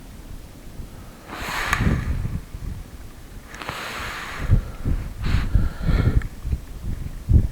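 A person breathing out hard or sniffing twice, short hissy breaths about a second and three and a half seconds in. Between and after them come rustles and low knocks of handling, over a low rumble of wind on the microphone.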